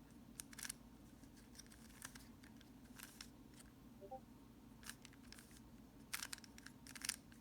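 Plastic layers of a Rubik's cube being turned by hand, giving short, faint clicks and scrapes at irregular intervals as the moves are repeated.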